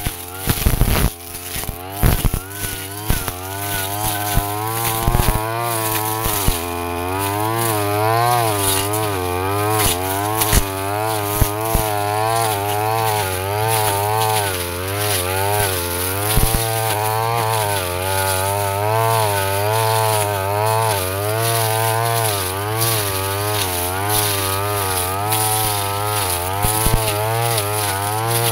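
Backpack brush cutter's small petrol engine running at high revs, its pitch wavering up and down as the spinning blade bites into thick swamp grass and ferns. Sharp ticks and knocks in the first several seconds as the blade strikes stems.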